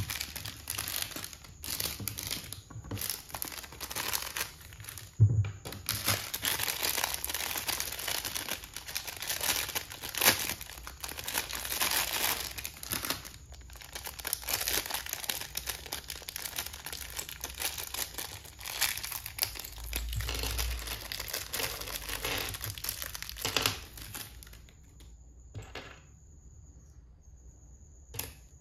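Plastic minifigure packaging crinkling and tearing as a printed blind bag and then a clear inner parts bag are handled and opened. Near the end the crinkling stops and a few small clicks of plastic toy pieces are heard.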